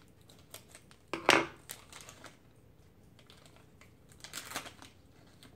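Scissors snipping open a thin plastic toy bag, then the bag crinkling as it is opened: scattered small clicks and rustles, loudest about a second in and again a little after four seconds.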